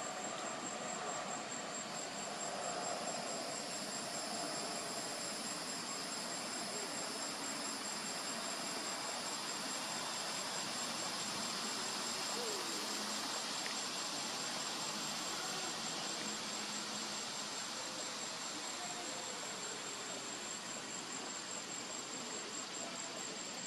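Insects trilling: a steady, high-pitched, rapidly pulsed trill at one pitch over a constant background hiss.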